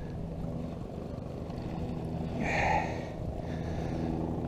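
A steady low motor hum, with a short burst of rustling noise about two and a half seconds in.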